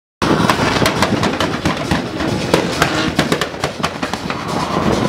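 Drift car sliding under power, with a dense run of sharp crackling pops over its noise. The sound cuts in suddenly just after the start.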